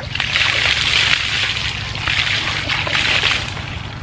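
Water poured from a plastic bucket over a person's head, splashing down his body onto the ground for about three and a half seconds and tailing off near the end.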